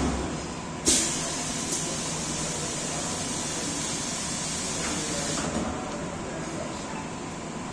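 Semi-automatic blister forming machine running its forming cycle: a knock at the start, then a sudden burst of compressed air about a second in that settles into a steady air hiss for roughly four and a half seconds before dropping away.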